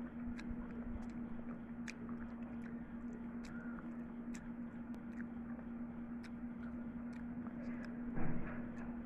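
Fingers mixing and scooping chicken biryani rice, giving scattered small clicks, over a steady low hum. A brief louder rustle comes about eight seconds in.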